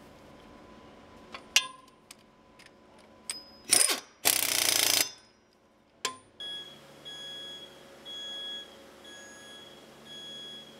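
Scattered metal clicks and a loud clack from work among the circular saw blades of a HewSaw R200 saw machine, then a short loud hiss a little past four seconds in. From about six seconds on, a warning beep repeats about once a second over a low machine hum.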